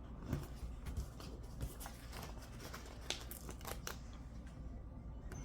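Faint paper handling: scattered light rustles and ticks of planner pages, stickers or paper being moved about, over a low room hum.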